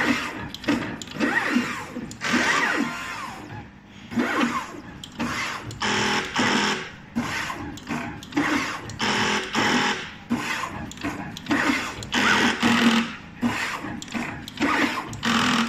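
NeoDen N4 pick-and-place machine placing components: the placement-head gantry darts back and forth in quick moves, its motors whirring up and down in pitch with each move, about one to two moves a second.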